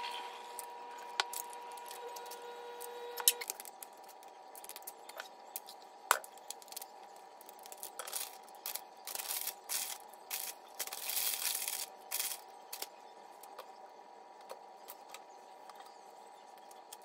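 Quiet food-prep handling: a spatula and spoon scraping and tapping as fillings are spread in a disposable aluminium pan, with scattered clicks and a run of rustling scrapes in the middle. A faint steady hum lasts the first few seconds.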